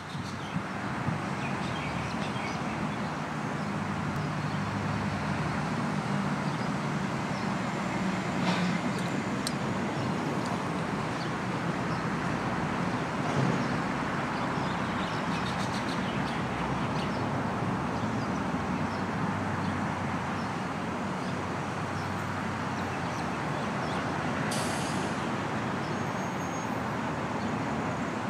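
Steady road traffic noise with the low rumble of vehicle engines, and a short high hiss near the end.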